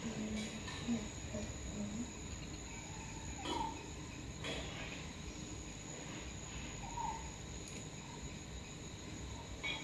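Steady high-pitched insect drone, like crickets, over a low rumble of background noise, with two short knocks about three and a half and four and a half seconds in.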